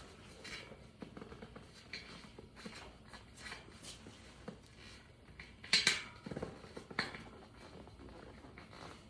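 Scattered handling sounds of a rubber tyre, inner tube and wheel rim being worked by hand: short rubs and light knocks, loudest in a cluster about six seconds in, as the tube's valve stem is fed through the rim.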